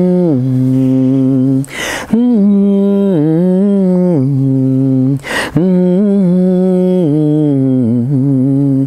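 A man humming a slow, wordless tune, holding notes that step up and down between a few pitches, with a breath drawn in about two seconds in and again about five seconds in.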